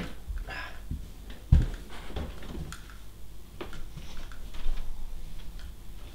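Scattered light knocks and bumps of objects being handled and moved about, with one dull thump about a second and a half in.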